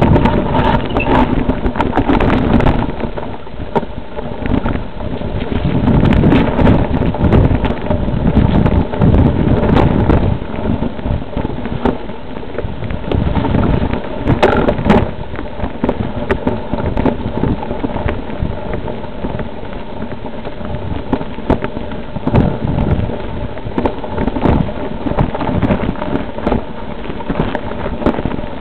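Mountain bike ridden fast over a rough dirt trail: wind buffeting the microphone, with frequent rattles and knocks from the bumps.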